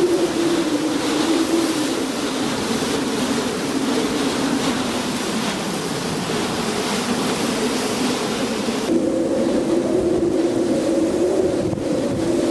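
Hurricane-force wind with driving rain buffeting the microphone: a dense, steady rushing with a low, wavering howl underneath. About nine seconds in the hiss abruptly turns duller.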